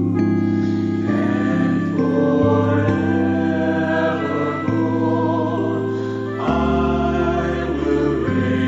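A slow Christian worship song: a choir sings held chords over organ accompaniment. The chords change every second or two.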